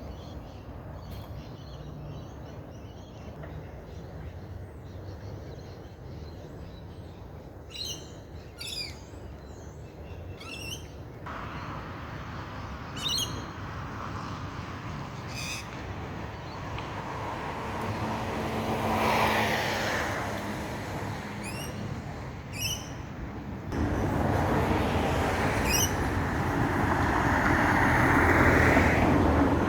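Small birds giving short, sharp chirps, a scattered handful of separate calls from about a quarter of the way in, over a steady low rumble of road traffic. A vehicle passes, swelling and fading around the middle, and a louder, steady traffic noise comes in suddenly near the end.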